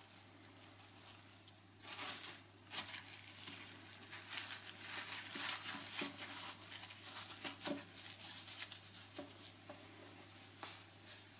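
Food wrapping being crinkled and rustled in irregular bursts, starting about two seconds in.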